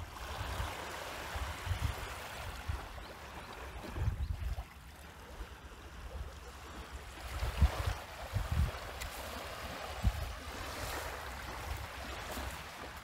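Wind blowing across the microphone: a steady rushing hiss with irregular low buffeting thumps.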